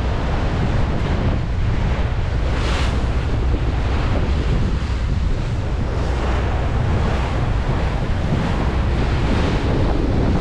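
Wind buffeting the microphone and water rushing past the hull of a motor trawler under way, a steady noise over a low continuous rumble.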